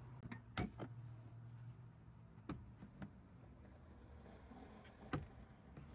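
A handful of faint, scattered clicks and knocks from a Jeep Patriot's plastic cargo-area side trim panel being pulled back by hand, in an otherwise quiet space.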